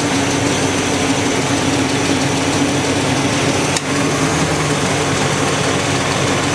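The 4.3L Vortec V6 of a 1999 GMC Sierra idling steadily while it warms up, heard from under the open hood. A single brief click comes a little before four seconds in.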